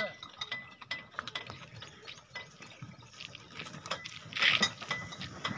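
Loaded bullock cart rolling on a dirt track, rattling with many irregular clicks, knocks and clinks from the cart and harness. A brief rustle comes about four and a half seconds in.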